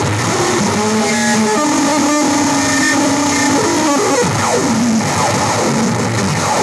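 Live noise music from electronics: a loud, dense wash of noise with held electronic tones that step up in pitch, then several falling pitch glides about four seconds in.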